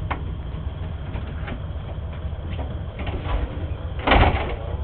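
Diesel railcar KiHa 203's engine idling as a steady low rumble heard inside the driver's cab, with light clicks of the controls being worked. A short loud burst of noise about four seconds in.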